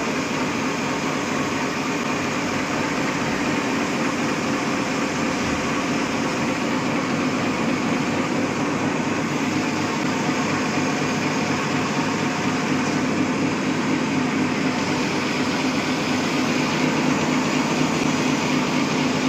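High-speed four-lane napkin paper folding machine running steadily: a fast, dense mechanical clatter over a low hum that grows a little stronger about halfway through.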